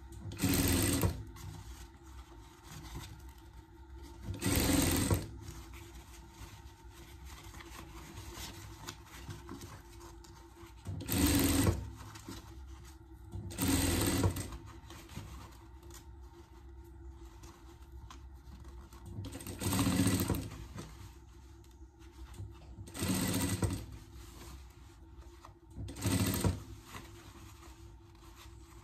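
Industrial sewing machine stitching elastic into a garment edge, running in about seven short bursts with pauses between them while the fabric is repositioned. A faint steady hum fills the pauses.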